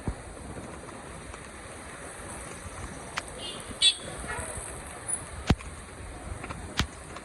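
Rainy city street ambience: a steady hiss of rain and traffic, with a few sharp clicks and a short high chirp about four seconds in.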